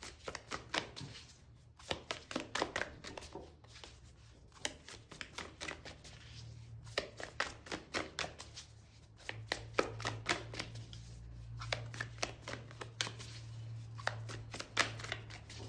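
A deck of oracle cards being shuffled by hand: quick flurries of card clicks and flicks, and single taps of cards on the table. A low steady hum comes in about six seconds in.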